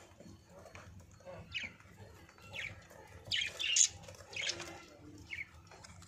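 Budgerigars chirping in short, scattered high calls, with a loud cluster of chirps a little over halfway through.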